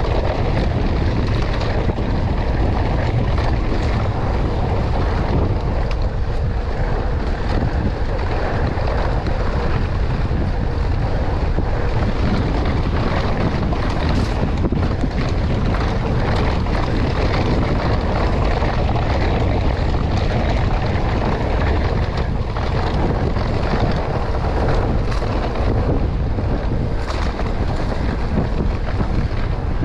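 Wind buffeting an action camera's microphone, with the rumble and rattle of an electric mountain bike rolling over a dry dirt singletrack; a steady, loud noise with a few short clicks and knocks.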